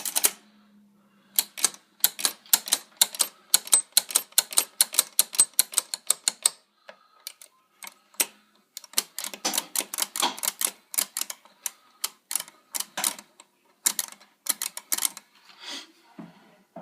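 Rapid, irregular clicking of an electromechanical pinball machine's switches and relays as its mechanism runs, about four to six clicks a second with short pauses. A faint steady hum sits under the first second.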